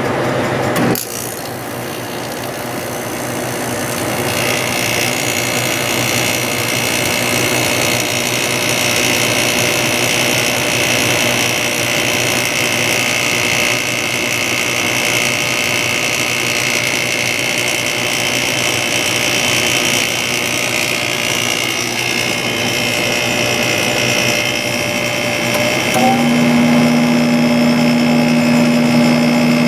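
A 1997 Sharp window air conditioner running, its fan motor whirring with audible motor harmonics. There is a click about a second in, a higher whine comes in a few seconds later, and near the end a deeper steady hum joins.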